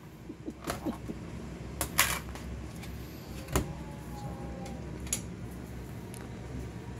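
Plastic food containers being handled on a stone countertop: a snap-on lid pulled off and tubs set down, giving a few sharp clicks and knocks, the loudest about two seconds in. A steady low hum runs underneath.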